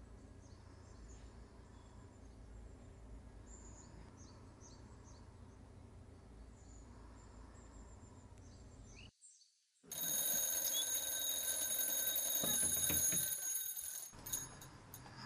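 Birds chirping faintly over a low hum. After a brief silence, an alarm clock rings loudly for about four seconds and is cut off near the end as it is switched off by hand, followed by a few small clicks.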